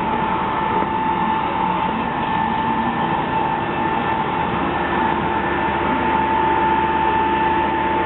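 A steady mechanical hum with a constant high-pitched whine running over it.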